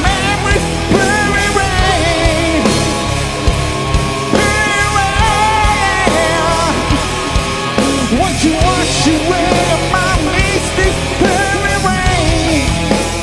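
Live hard rock band playing an instrumental passage: a lead line that bends and wavers in pitch over a steady bass and drum beat.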